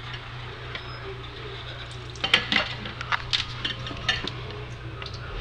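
Kitchen dishes and utensils clattering: a quick run of sharp clinks and knocks starting about two seconds in, over a steady low hum.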